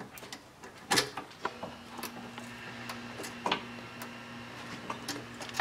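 Scattered clicks and knocks of a clip puller prying plastic wiring-harness clips in a car's engine bay, the loudest about a second in. A faint steady hum runs underneath.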